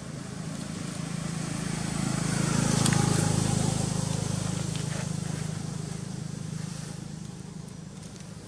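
A motor vehicle's engine passing by: a low hum that grows louder to a peak about three seconds in, then slowly fades away.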